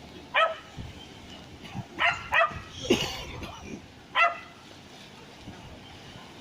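An animal giving short, sharp calls, about five in four seconds with a couple close together, over a steady background rush.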